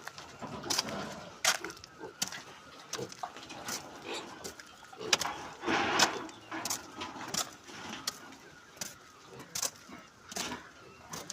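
Pigs moving about in a pen: irregular sharp knocks and clicks, a few a second, with a louder noisy stretch about six seconds in.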